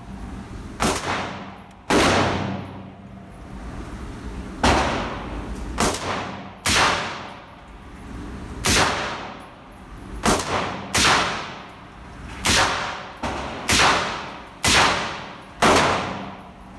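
About a dozen rifle shots from a suppressed 5.56 AR-15 pistol (YHM Turbo suppressor on a 10.5-inch barrel), fired at an uneven pace. Each report is a sharp crack followed by a long echoing tail in a hard-walled indoor range.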